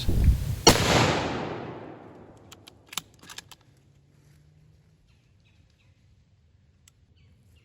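A single gunshot less than a second in, its report echoing and dying away over about a second, followed by a few faint clicks.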